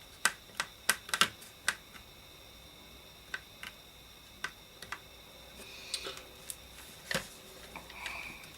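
Sharp clicks and knocks from a Dansette Gem radio's chassis being shifted by hand inside its plastic case: a quick run of about eight in the first two seconds, then a few scattered ones, the loudest about seven seconds in.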